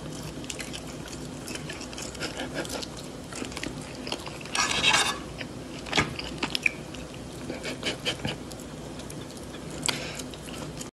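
Chewing and crunching of food, with a fork clicking and scraping on a plate, over a steady low hum. A louder scrape comes about four and a half seconds in and lasts about half a second, and sharp clicks follow about a second later.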